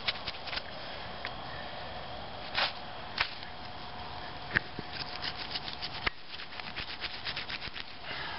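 Knife cutting and scraping through the thick gristle shield on a hog's shoulder: scattered small clicks and rasps, with a couple of louder scrapes near the middle.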